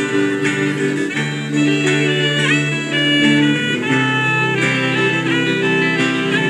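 Saxophone and guitar playing an instrumental passage live, held melody notes with a few bends in pitch over a steady chordal backing.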